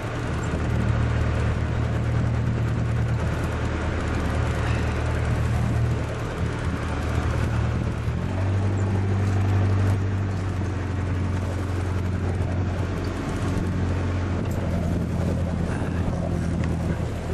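Fishing charter boat's engine running steadily under a hiss of water and wind. The engine note changes about eight seconds in.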